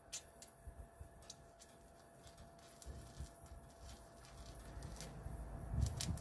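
Small oxy-fuel gas welding torch, burning a butane–propane mix with oxygen, running with a low rumble and scattered sharp crackles as its flame plays on the metal; the rumble grows louder near the end.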